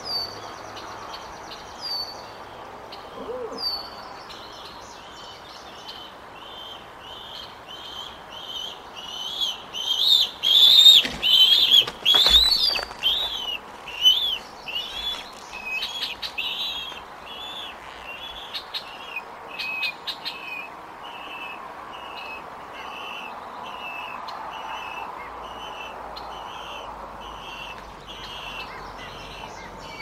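Bald eagles calling at the nest: a long run of high, down-slurred chirps, about two a second, loudest a few seconds before the middle. Wing flaps are heard as the birds settle on the nest.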